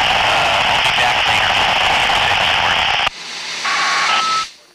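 Handheld VHF ham radio receiving a weak, noisy signal: a loud rush of static hiss that cuts off about three seconds in. Near the end comes a short two-note beep, the second note a little higher, and then the radio goes quiet.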